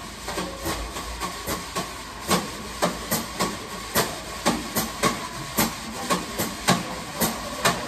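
Jazz drum kit played softly, with crisp, uneven strikes on drums and cymbals and an upright bass faint underneath. The clarinet is out: this is the drums-and-bass break of a clarinet trio's tune.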